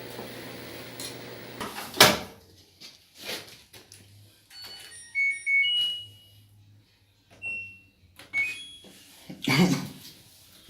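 LG washer-dryer humming steadily, then going quiet about a second and a half in. Knocks and clatter from handling the machine follow, the loudest about 2 s in and another near the end, with several short electronic beeps from its control panel in between.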